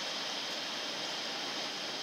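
Steady, even rushing noise of a container train rolling slowly over the tracks at a distance behind its electric locomotive.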